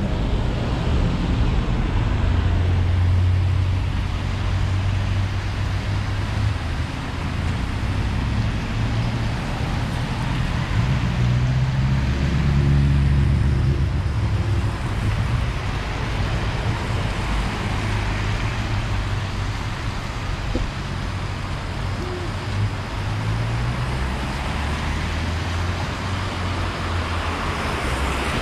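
City road traffic passing close by: vehicle engines rumbling low, with tyre noise hissing on the wet road. A heavier engine passes, loudest about twelve to fourteen seconds in.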